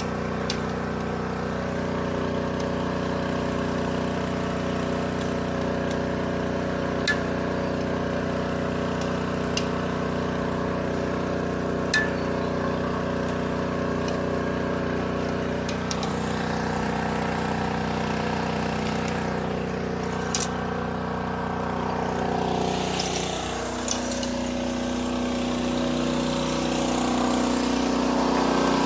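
A small engine runs steadily, with a few sharp metallic clinks every few seconds. Its note changes about 23 seconds in.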